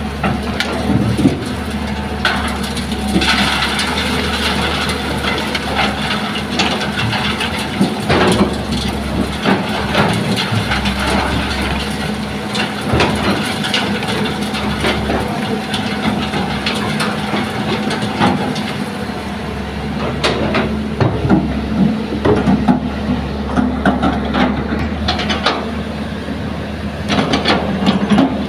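Hitachi hydraulic excavator's diesel engine running steadily under load while its bucket pours sand and stones through a steel sieve screen into a dump truck. The pouring makes a hiss, and rocks and clods knock and clatter repeatedly against the screen and the truck bed, with the knocks coming thickest near the end as the bucket works the soil.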